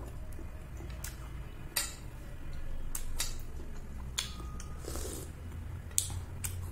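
Metal spoon clinking and scraping against a ceramic dish of rasmalai in milk syrup, about six sharp clinks spread out, with softer eating sounds between them.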